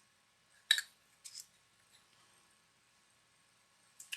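Small hard parts of a bullet puller and a pulled bullet being handled: one sharp click a little under a second in, two faint clicks shortly after, and another small click near the end.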